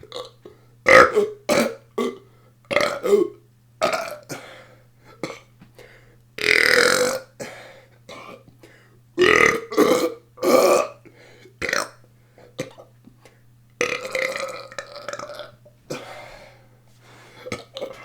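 A person burping deliberately again and again: a quick run of short belches, with a few longer drawn-out ones among them.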